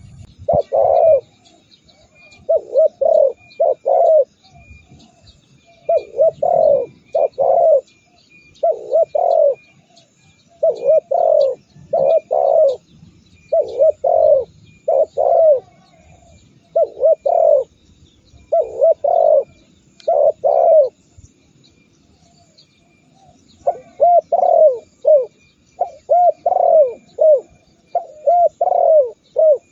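Spotted dove cooing: phrases of two to four coos repeated every second or two, with a pause of a few seconds past the middle. Faint high chirps run behind.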